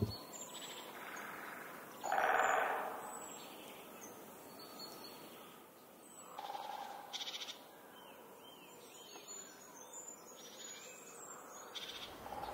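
Woodland birds calling and singing: many short, high chirps and trills overlapping throughout, with a louder, lower sound about two seconds in.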